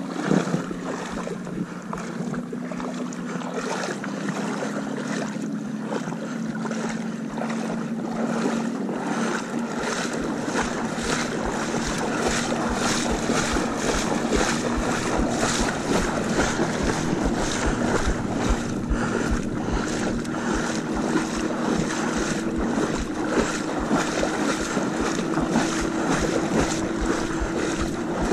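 Boat motor running underway, its note climbing slowly as the boat picks up speed, with wind buffeting the microphone and water rushing past the hull.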